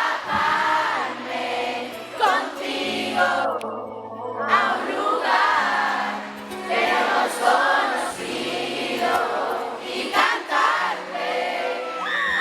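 Pop song played live through a sound system: singing voices over an instrumental backing with held bass notes.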